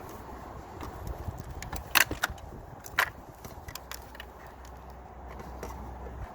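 Sharp plastic clicks and knocks from a car door trim panel being worked free of its clips at the top. The loudest come about two seconds in and again a second later.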